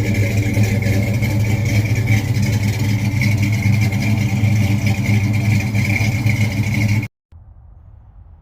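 A loud engine running steadily at a constant speed, cutting off abruptly about seven seconds in, after which only a faint low hum remains.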